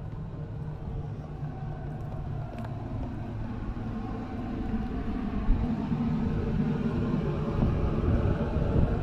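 An engine running with a steady low rumble that grows louder from about halfway through.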